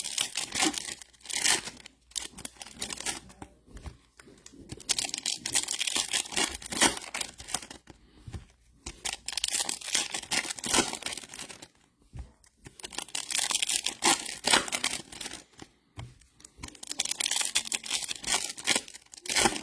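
Foil trading-card pack wrappers being torn open and crinkled by hand. The rustle comes in bursts of a few seconds with short pauses between them.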